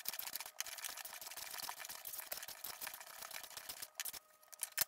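Lie-Nielsen low-angle jack plane shearing shavings off a board's edge: a steady scratchy hiss that stops about four seconds in, followed by a single click.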